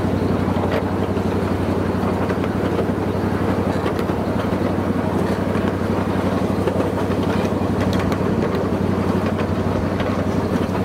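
Miniature train's engine running steadily, a low even hum with occasional faint clicks over it.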